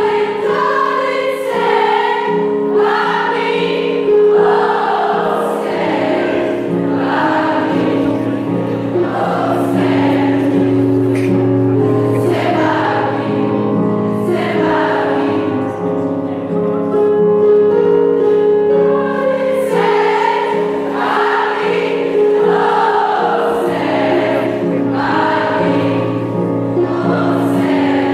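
A large choir of schoolgirls singing together, with sustained notes and no pause.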